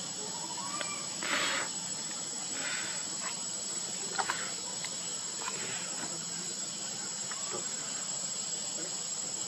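Steady high-pitched insect chorus drones throughout. A short burst of noise comes about a second and a half in, and two sharp clicks come about four seconds in.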